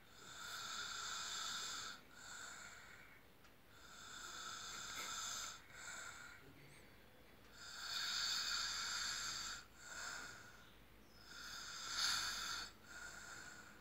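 Sleeping people snoring in a slow, even rhythm: about every four seconds a long, breathy snore followed by a shorter one, four times over.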